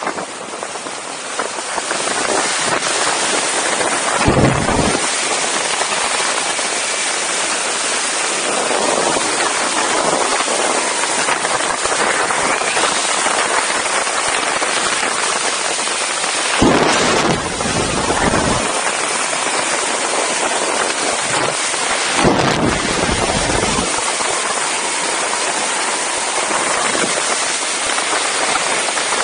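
Steady rush of wind noise on the microphone during a fast speedriding flight, building over the first couple of seconds. Three heavier, deeper gusts of buffeting come about four seconds in and twice more later on.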